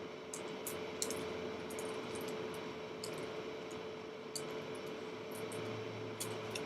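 Light plastic clicks of a 1x3x3 Rubik's cube being turned, scattered irregular taps, over a faint steady hum.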